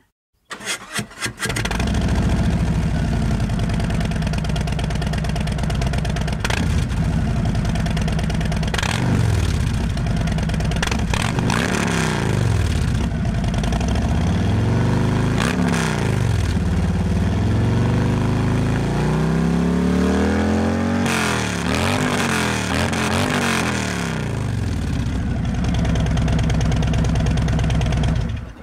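2017 Harley-Davidson Street Glide's Milwaukee-Eight V-twin breathing through SVT Boneshaker slip-on megaphone mufflers on stock headers: cranked on the starter, it catches after about a second and idles with a loud, aggressive bark. Several throttle blips rise and fall, with a quick run of revs about twenty seconds in, and the sound cuts off at the very end.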